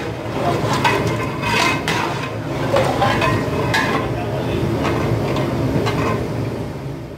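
A long metal ladle stirs chicken pieces in a thin masala gravy inside a large aluminium degh, scraping and clinking against the pot's sides several times, over a steady low rumble.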